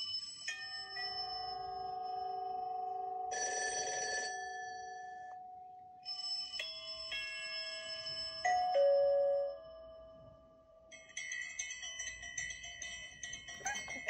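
A run of electronic ringtone and chime sounds being played back. First come held tones that change every second or two, with a short buzzy ring a few seconds in. From about two-thirds of the way through, a rapid repeating ring like a phone's.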